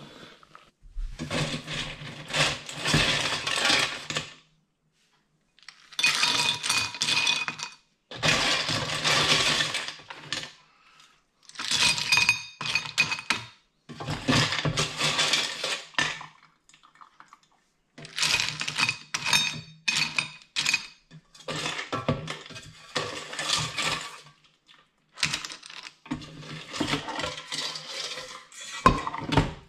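Cooked cockle and clam shells clattering and clinking against each other and a ceramic dish as they are transferred from the pot. The clatter comes in about eight bursts of a couple of seconds each, with sudden short silences between them.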